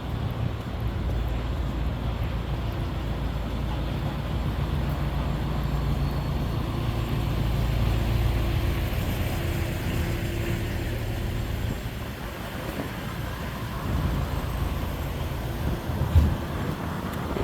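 City street traffic with a heavy vehicle's engine running close by, a steady low rumble that eases after about twelve seconds. A single short knock near the end.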